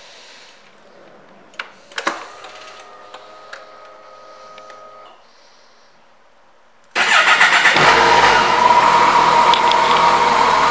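Ignition key clicks about two seconds in, followed by a steady electric hum for about three seconds. About seven seconds in, the Kawasaki Concours 14's 1352 cc inline-four is started and runs loud and steady at idle.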